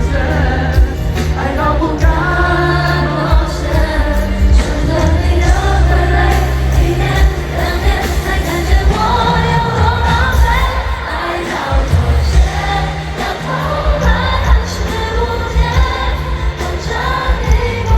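Live Mandarin pop ballad played at a concert, with singing over a band and heavy sustained bass notes, heard over the arena sound system from the floor among the audience.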